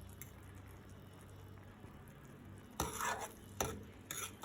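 A utensil stirring instant noodles in a cooking pot, scraping and clinking against the pot three times in the last second and a half, over a faint steady low background.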